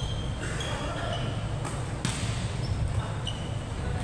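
Basketball game sounds in a large hall: sneakers squeaking on the court in short high squeaks, and a basketball bouncing twice near the middle, over a steady low rumble of the hall.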